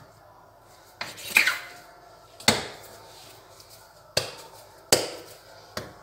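Kitchen knife cutting through a log of dough and knocking on a marble countertop: several sharp knocks, irregularly spaced about a second apart, as the dough is divided into portions.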